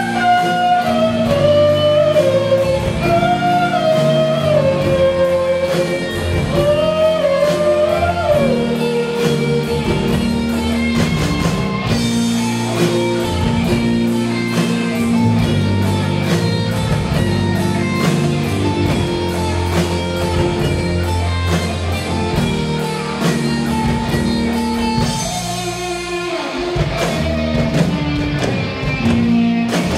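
Rock band playing live: an electric guitar lead line with bends over drum kit, bass guitar and keyboard. The low end drops back briefly near the end before the full band comes back in.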